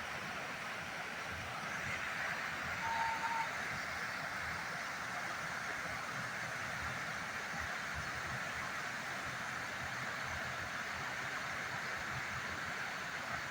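Off-road jeep engine labouring up a steep climb under a steady hiss, with one brief high beep about three seconds in.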